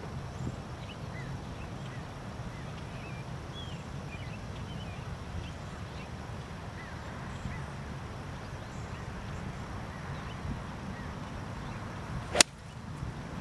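A golf club striking the ball on a full swing: one sharp, loud crack about twelve seconds in. Birds chirp faintly throughout, over a steady low outdoor background.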